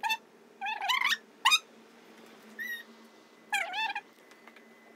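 A toddler's high-pitched voice: short squeals and babbled syllables, about five brief calls with bending pitch.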